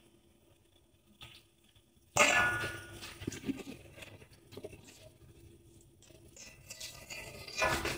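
A metal spatula scraping and clanking against a large metal wok as it works sauce over raw chicken. A sudden scrape with a short metallic ring about two seconds in, then softer scraping, and another scrape near the end.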